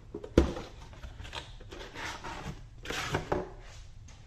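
Cardboard box being opened by hand: a sharp knock about half a second in, then several short scraping and rustling noises of cardboard flaps and the plastic-bagged contents.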